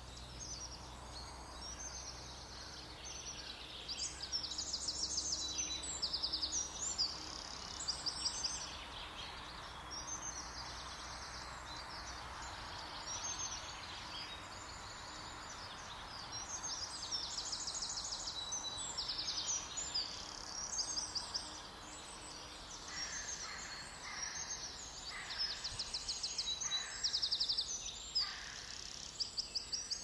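Small songbirds singing high, rapid trilled phrases, repeated every second or two, over a steady soft background rush.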